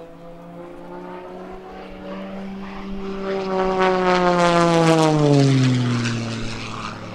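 Single-engine aerobatic propeller plane making a low pass. Its engine and propeller note swells to its loudest about four to five seconds in, then drops in pitch as the plane goes by.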